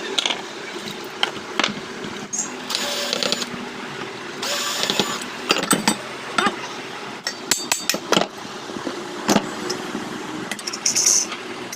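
Hand tools working on a ceiling fan motor during a bearing change: a string of sharp metal clicks, taps and knocks at irregular intervals, with a few short scraping bursts.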